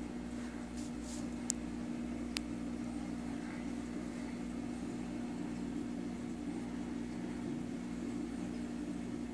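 Steady electric hum of a reef aquarium's pumps running, with two sharp clicks about a second and a half and two and a half seconds in.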